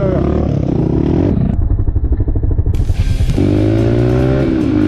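Dirt bike engine heard from on the bike, running hard with a fast even pulse through a duller stretch in the middle, then its pitch climbing steadily as it accelerates again about three and a half seconds in.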